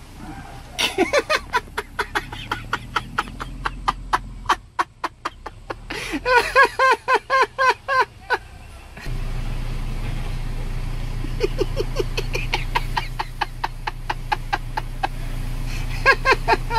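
A person laughing hard in long runs of quick, high-pitched cackles, over a steady low rumble that grows louder about nine seconds in.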